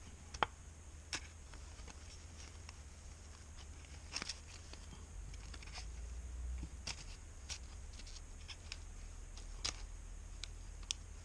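Pry tool clicking and scraping against a Samsung Galaxy S21's back glass and frame as the heat-softened adhesive is worked loose: small irregular ticks scattered throughout, over a low steady hum.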